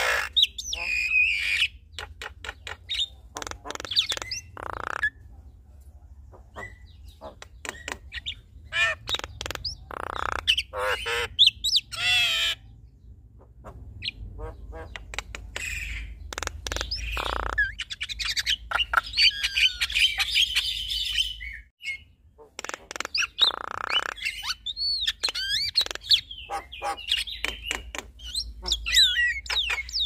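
A male and a female Javan myna (jalak kebo) calling back and forth in a duet: a rapid jumble of harsh squawks, clicks and whistled gliding notes, with brief lulls.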